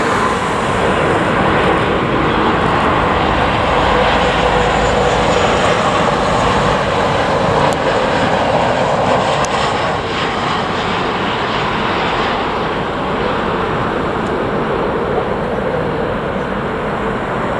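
Jet airliner's engines heard close by, a loud, steady rush of noise with a faint whine, easing off a little in the second half.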